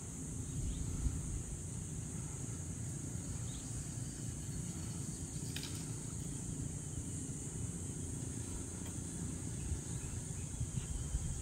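Steady high-pitched chorus of insects, over a low, steady rumbling noise, with one brief click about five and a half seconds in.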